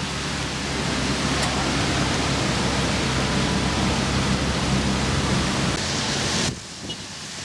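Steady hiss of rain and wet road under the low, even hum of an idling supercar engine. The sound drops off abruptly about six and a half seconds in, then builds back.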